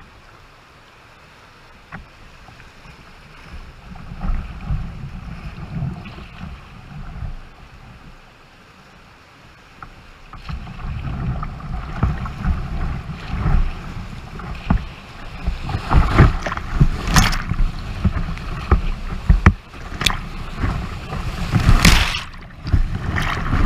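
Whitewater rapids rushing and splashing against a kayak's bow-mounted camera. It is quieter for the first ten seconds or so, then louder and churning, with several heavy splashes as waves wash over the bow and camera, the biggest near the end.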